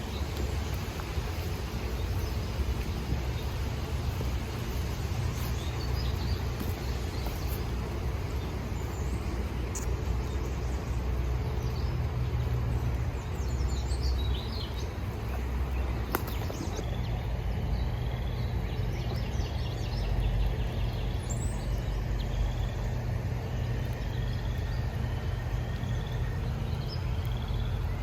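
Wild birds chirping and singing over a steady low rumble. In the second half one bird repeats a short call about every second and a half.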